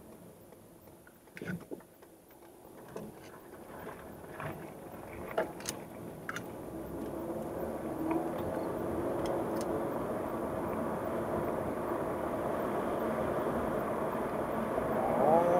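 Car pulling away from a stop, heard from inside the cabin: engine and tyre noise on a worn old road surface builds from quiet to a steady rumble over the first eight seconds, with scattered clicks in the first few seconds. Near the end a short pitched sound rises and falls over the rumble.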